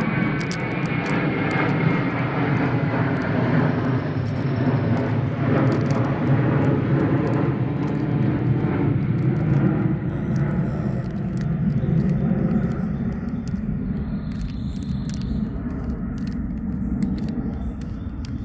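Steady rumble of a vehicle cabin while driving, easing off near the end, with faint clicking of a twisty puzzle cube being turned.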